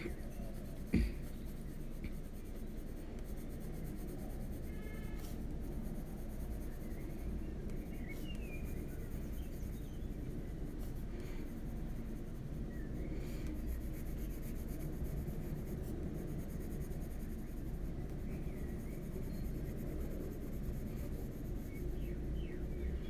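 Polychromos colored pencil shading on a colouring-book page: a soft, continuous scratching of the pencil lead on paper. There is a single knock about a second in.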